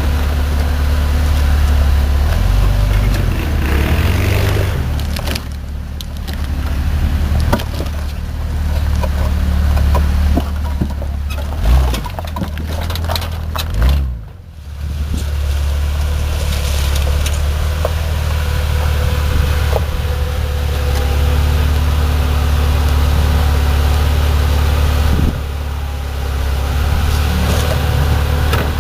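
Jeep Grand Cherokee engine running steadily at low speed while crawling off-road, with scattered sharp cracks and knocks and a brief drop in engine sound about halfway through.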